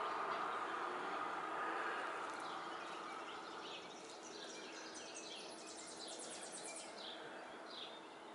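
Nestling birds cheeping in short, high chirps as a mealworm is held over their open beaks: the begging calls of hungry young birds, with a quick run of chirps near the middle. Beneath them a background hiss fades away over the first few seconds.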